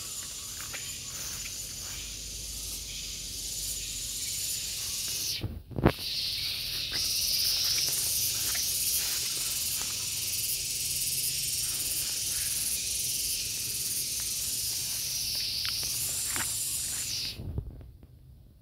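Gareng pung cicadas calling in a steady, high-pitched buzzing drone. A sharp knock comes about six seconds in, after which the buzz is louder, and the buzz cuts off suddenly near the end.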